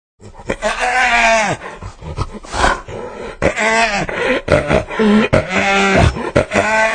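Hyena laughing: a string of loud, drawn-out pitched calls, each about a second long and dropping in pitch at its end, one after another with short gaps.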